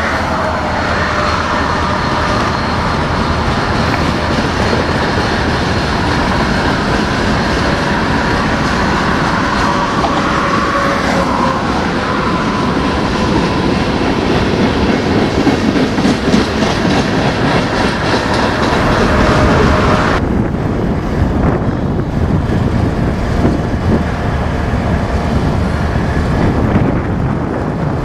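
Freight train rolling past: steel wheels clacking over the rail joints, with a faint steady wheel squeal through the first half. About two-thirds of the way in, the sound abruptly turns duller.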